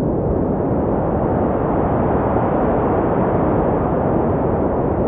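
Synthesized noise from Ableton's Operator synth played through a low-pass filter whose cutoff an LFO slowly sweeps upward. The steady hiss gradually brightens.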